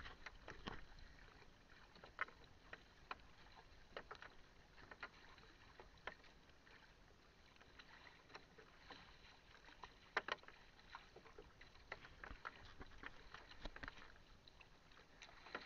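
Faint paddle strokes splashing in choppy sea as an outrigger canoe (bangka) is paddled along, heard as irregular short splashes, the loudest about ten seconds in.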